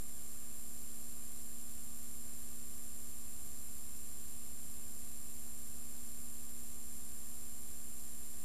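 Steady hiss with a constant electrical hum and faint high whine, and no other sound: the noise floor of a silent film's tape transfer.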